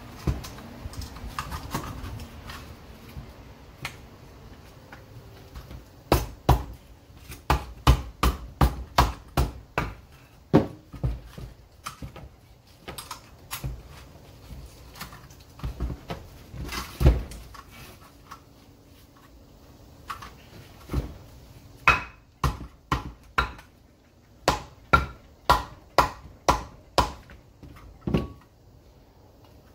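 Hammer striking a Ford 6.0 VGT turbocharger's housing to knock it loose from the turbo. The blows come in runs of about two a second, with a single heavy blow in the middle.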